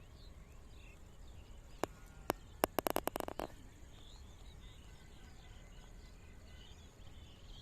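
Birds chirping repeatedly over a faint steady insect drone, with a quick run of sharp taps about two to three and a half seconds in.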